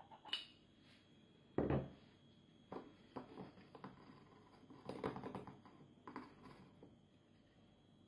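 Metal espresso portafilter and filter basket handled on a wooden counter: small metal clinks, and a dull knock about two seconds in. Then a plastic scoop scraping and tapping in a metal coffee tin.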